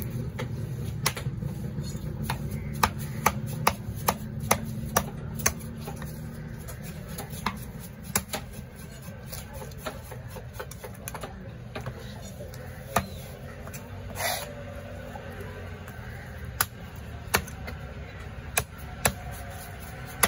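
Heavy cleaver chopping trevally flesh on a round wooden chopping block: sharp knocks, several a second for the first few seconds, then more spaced out. A steady low rumble runs underneath.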